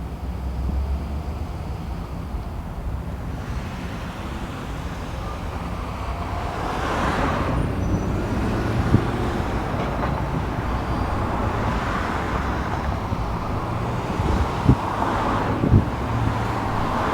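Road traffic: a steady low rumble with vehicles passing, swelling about seven seconds in and again near the end, and a few short sharp knocks.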